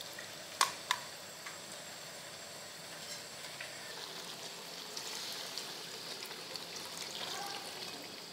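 Coconut milk squeezed by hand from grated coconut and poured through a metal strainer into a pan of curry: a soft wet trickle and splashing over a steady hiss, with two sharp clicks just under a second in.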